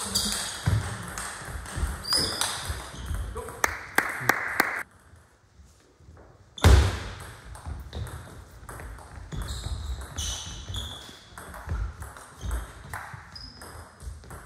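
Table tennis rally: the ball clicking rapidly off rubber-faced bats and the table, with short shoe squeaks on the sports hall floor. It goes quiet for about a second and a half near the middle, then a loud knock starts the next stretch of play.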